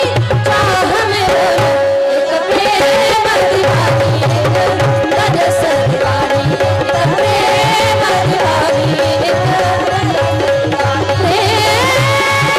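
Live devotional bhajan: a woman singing a drawn-out melodic line over tabla playing a steady rhythm and a sustained held drone note. Near the end a new, higher held chord comes in.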